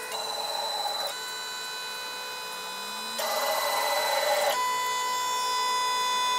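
Stepper motors of a homemade CNC router whining as the machine homes its axes. It is a steady electronic whine of several tones that changes pitch in steps as the moves change, about one, three and four and a half seconds in.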